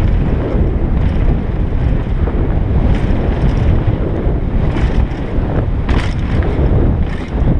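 Mountain bike descending a rough dirt forest trail at speed: heavy wind buffeting the helmet camera's microphone over the rumble of the tyres, with a few sharp rattles as the bike hits bumps.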